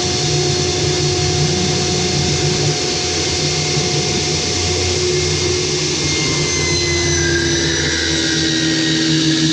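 Ryobi 10-inch 15-amp table saw running, a loud steady motor whine over the noise of the spinning blade, its pitch shifting slightly about five seconds in.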